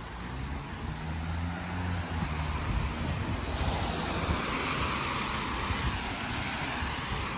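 Road traffic on a wet city street: a low engine hum for the first couple of seconds, then the hiss of tyres on rain-wet pavement swelling as vehicles pass.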